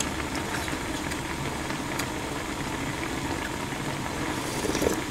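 Ramen broth boiling in a wide pot on a portable gas stove: a steady low bubbling rumble, with a faint click or two.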